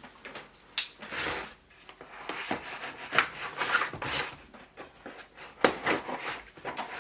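Packaging being pulled open and handled by hand: irregular rubbing and scraping with several sharp knocks.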